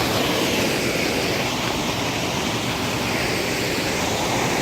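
Steady rushing of a small waterfall, an even hiss of falling water.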